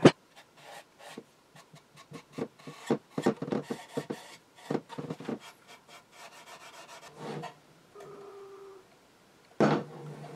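Cloth rag rubbed over a small wooden radio cabinet in quick, short wiping strokes, applying a coat of shellac. A louder knock of handling comes near the end.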